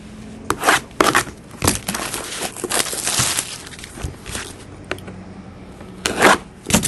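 Plastic shrink-wrap crackling and tearing as it is pulled off a sealed cardboard box of trading cards, in a string of sharp crackles with a longer rustle a couple of seconds in. Near the end, scissors snip through the box's seal.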